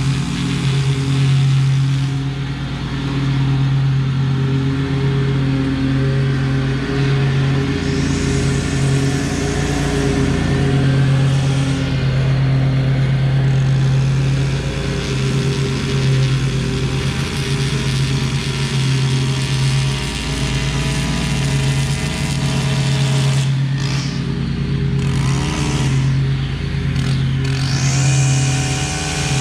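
Small engines of lawn equipment running steadily: a stand-on mower's engine hum with a higher string trimmer whine over it. A higher engine note rises near the end, as a machine revs up.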